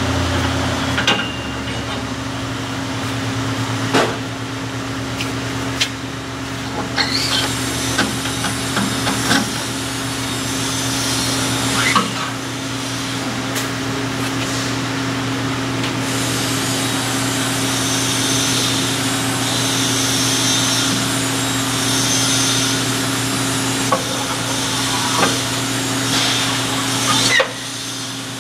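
Metal clanks and knocks, spaced irregularly, as circular saw blades and a steel arbor shaft are handled and changed on a gang rip saw. Under them is a steady low machine hum, which drops away near the end.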